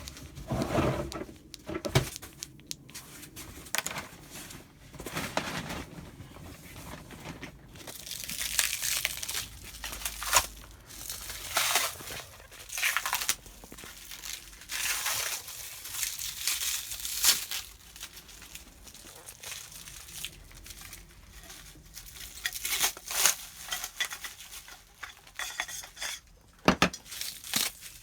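Packaging being unpacked and parts handled: irregular crinkling and rustling of wrapping, with scattered light clicks and knocks of parts being set down.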